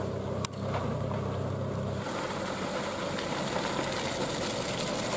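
Truck engine running steadily at low revs, with a single click about half a second in. About two seconds in the sound changes abruptly to a lighter vehicle's engine with a hiss of tyres on the wet, muddy road.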